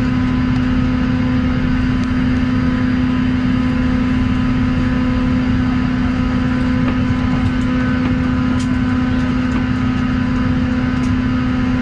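Jet airliner cabin noise while taxiing, the engines running at idle: a steady rushing noise with a constant low hum and its overtones, unchanging in pitch and level.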